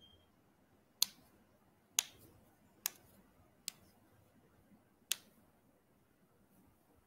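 Five sharp clicks at uneven gaps of about a second, from a device being handled while its sound volume is being set back up; a very faint short beep right at the start.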